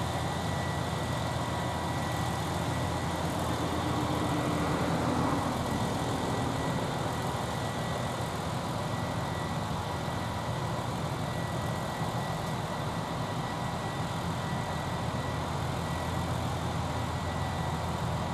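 Steady hum of parked electric trains' onboard equipment idling on depot sidings, with a thin steady whine above it. The sound swells slightly about four to six seconds in.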